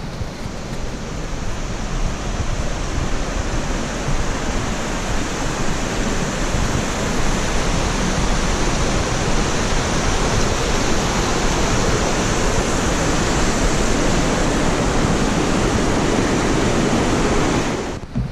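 Rushing mountain stream: a steady, loud rush of water that swells gradually, then cuts off suddenly near the end.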